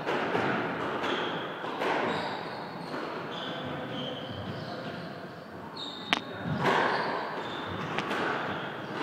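Squash rally in a reverberant court: sharp cracks of the ball off the racket and walls every second or two, the loudest about six seconds in, with short high squeaks of shoes on the wooden floor.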